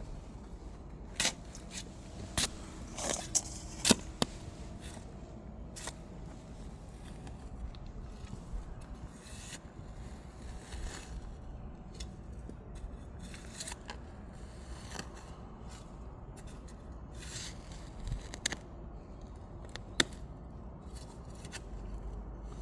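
Digging tool scraping and chopping into clay soil, with a series of sharp scrapes and knocks, several close together in the first few seconds and then one every few seconds.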